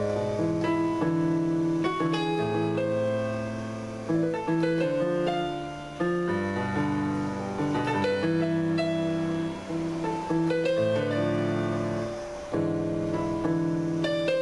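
Synthesizer keyboard played with a piano sound: held chords in the left hand under a melody line, changing about once a second.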